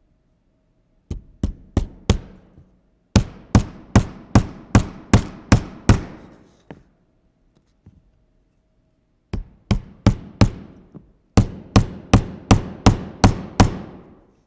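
Hammer striking a hard surface in four quick series of sharp blows, about two to three a second, each blow with a short ring, with pauses between the series.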